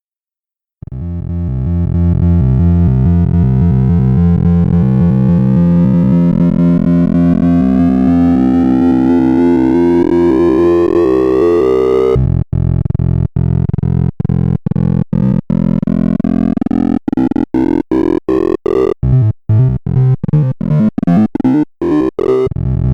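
Sorting-algorithm sonification: synthesized tones, one per array element touched, stream by so fast that they blur into a dense, buzzing electronic chord, with pitches sweeping upward. It starts about a second in. At about twelve seconds the sound changes and becomes choppy, broken by many short gaps.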